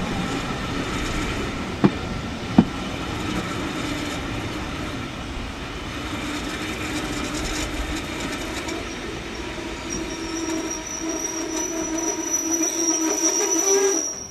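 Steam-hauled carriages running over the track, heard from the rear carriage: a steady rattle with two sharp clicks about two seconds in. From about ten seconds a high wheel squeal joins in and grows louder until the sound cuts off.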